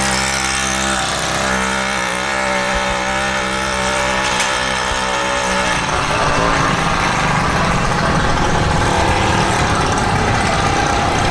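Small motorized-bicycle kit engine running as the bike rides off, a steady engine note that turns rougher and less even about six seconds in.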